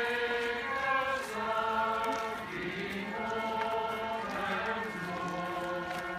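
Choir and congregation singing a hymn together in long held notes that step from one pitch to the next.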